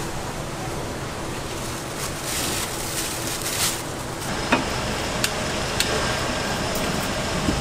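Steady background noise of a street food stall, with a rustling of cut green onions being spread over rice cakes in a metal tray. There are a few light clicks and knocks about halfway through.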